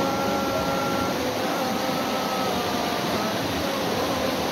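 Muddy floodwater rushing steadily under heavy rain, with a muezzin's voice holding long drawn-out notes of the call to prayer over it.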